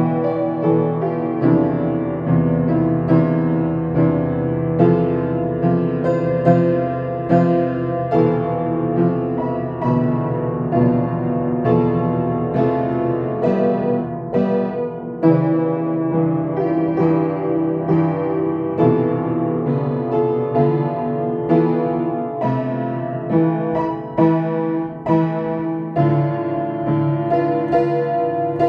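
Solo piano playing a slow piece, with stronger struck notes falling about once a second over sustained chords.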